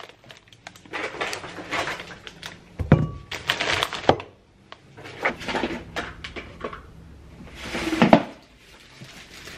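Plastic shopping bags and packaging rustling and crinkling as groceries are unpacked, with a few thuds of items being set down on a wooden kitchen worktop.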